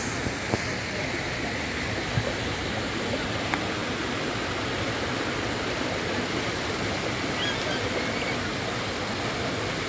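Fountain jets splashing steadily into a pool, an even rush of falling water. A few short, faint knocks in the first few seconds.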